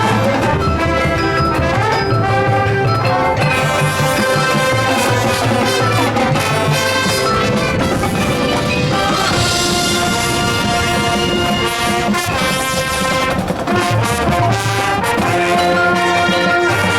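High school marching band playing, with the brass section holding full, sustained chords over a low bass line and percussion.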